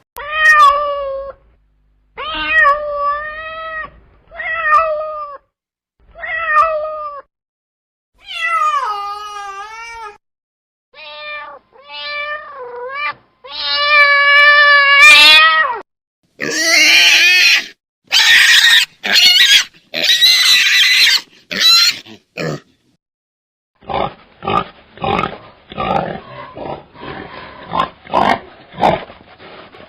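A series of different recorded animal calls, one kind after another. First come four short cat meows about two seconds apart, then longer gliding calls, then harsher calls. The run ends with a string of quick, short calls.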